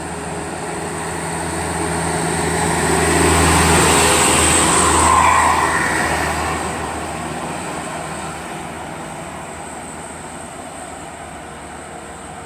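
Diesel bus climbing a steep hill in low gear, its engine growing louder as it approaches, passing at its loudest about four to five seconds in, then fading away.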